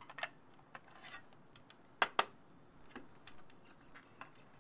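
Stiff plastic packaging clicking and creaking as it is bent and pried apart by hand, with two sharp snaps about two seconds in.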